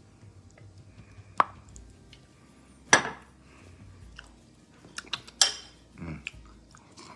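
Eating utensils clinking and knocking against a pan or dish: a few sharp clinks, the loudest about a second and a half and three seconds in, and a quick cluster of them later, with a duller knock near the end.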